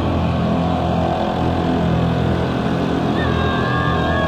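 Small bumper-boat engines running with a steady, even drone.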